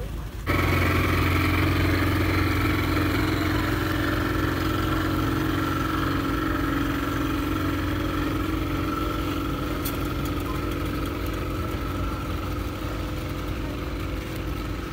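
Speedboat outboard motor idling: a steady, even engine hum that starts abruptly about half a second in and eases slightly toward the end.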